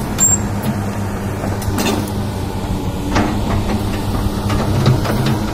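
Crawler excavator's diesel engine running steadily as the machine travels on its steel tracks, with a few sharp clanks and crunches from the tracks over the ground. The engine runs smooth, freshly overhauled after a broken piston ring.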